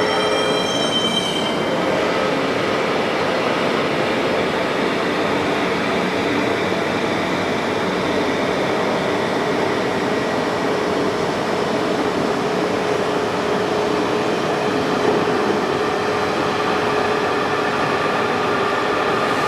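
WMW Niles DP1 facing lathe running: a steady mechanical whir with a held tone. A high squeal fades out in the first second or two.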